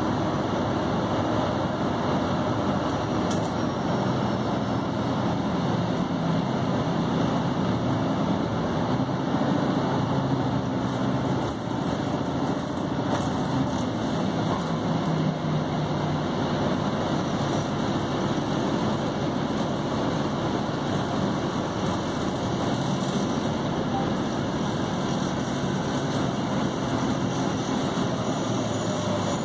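City transit bus driving, heard from inside the passenger cabin: steady engine hum and road noise, the engine's pitch shifting between about eight and sixteen seconds in.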